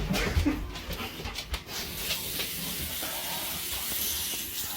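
A few knocks and bumps, then about two seconds in a tap is turned on and water runs steadily into a sink.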